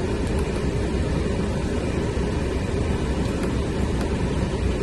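Steady low rumble and hiss of the 2022 Ford Maverick running, heard from inside the cab, with a few faint clicks.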